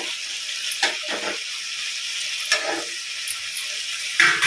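Thick paneer curry sizzling steadily in a kadai over a gas flame, with a few brief knocks, the loudest near the end.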